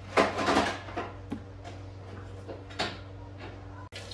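Kitchenware being handled: a quick cluster of clattering knocks and clinks, then a few scattered lighter knocks, over a steady low hum.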